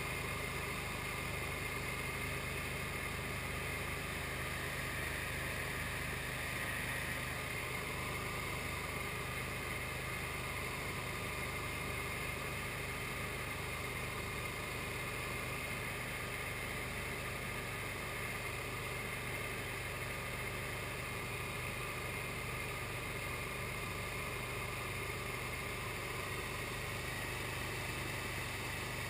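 SD1 Minisport ultralight aircraft's engine and propeller running steadily at constant power in cruising flight, an even, unchanging drone.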